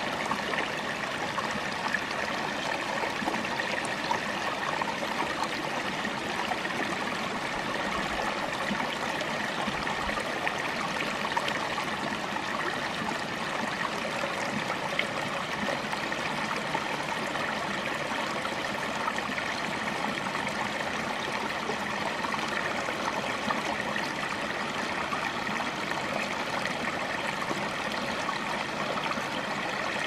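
Small rocky mountain brook babbling over stones and spilling down a little cascade: a steady, even rush of water with tiny splashes now and then.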